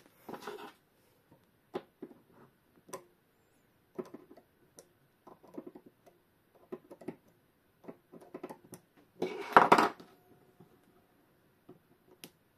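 Small metal tools clicking and scraping on a clock movement as its nuts are worked loose, in scattered short clicks. There is a brief rattle just after the start and a louder, longer clatter about nine and a half seconds in.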